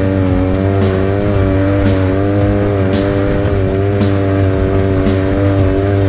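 Background rock music with a steady drum hit about once a second, over the steady drone of a side-by-side's engine running.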